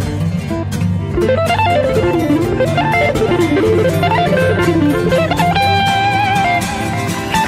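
Background music: a blues-rock electric guitar playing fast melodic runs over bass and a steady drum beat.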